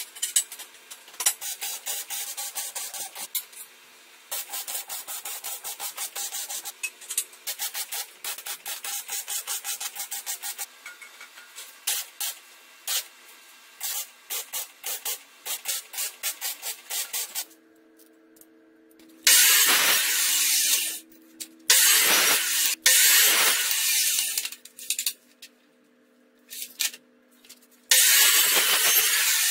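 Welding arc crackling in short runs with brief pauses as joints of a square-tube frame are welded. Then, in the later part, a Makita chop saw cuts square metal tubing in three loud bursts.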